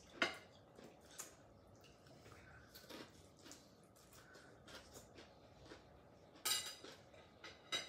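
Quiet eating sounds at a table: scattered light clicks of chopsticks and dishes and small mouth sounds of eating, with one louder rasping noise lasting about half a second near the end.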